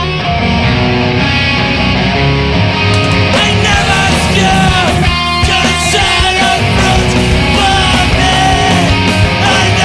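Hardcore punk recording played loud, built on distorted electric guitars. The sound grows brighter and fuller about three seconds in.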